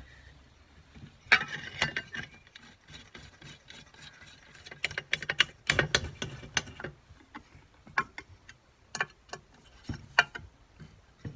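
Small metal latch parts being handled and fitted together by hand: irregular clicks, knocks and light scraping, in several bunches.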